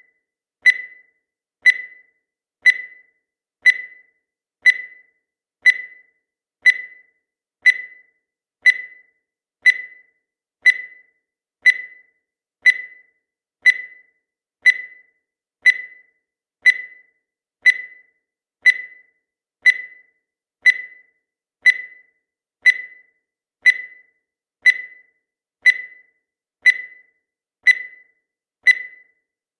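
Countdown timer sound effect: a short, sharp beep at one high pitch, once every second, each fading quickly.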